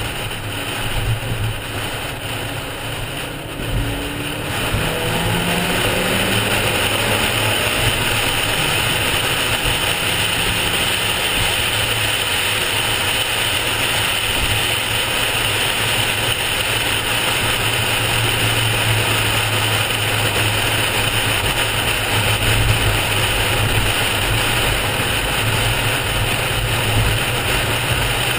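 Inside a car at highway speed: engine, tyre and wind noise. It gets louder about four seconds in as the car speeds up, then holds a steady drone.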